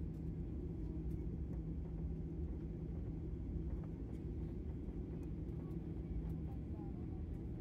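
Steady low drone of a jet airliner's engines and cabin, heard from inside the cabin at a window seat while the plane rolls along the ground. The pitch holds even, with no spool-up.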